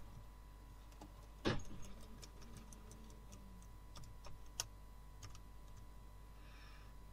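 Keys of a Toshiba Satellite L650 laptop's newly fitted keyboard pressed one by one to test them: sparse clicks, with one louder knock about one and a half seconds in and a few quick clicks around the four-second mark.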